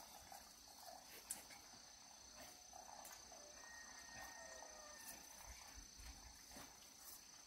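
Faint outdoor ambience with insects trilling steadily at a high pitch, and a single small click about a second in.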